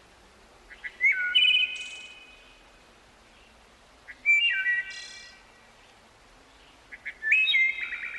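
Bird-like chirping sound effect from a children's TV channel, played three times about three seconds apart. Each call is a short, high, whistly chirp lasting about a second.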